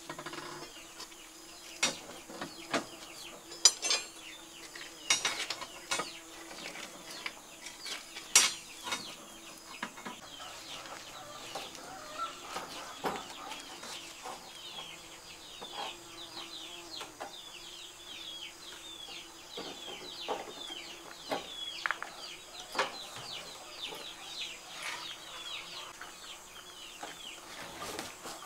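Sharp metallic clicks and taps of steel rebar and tie wire being handled and twisted at the grid crossings, the loudest about 4 and 8 seconds in. Behind them, chickens call steadily in many short falling chirps.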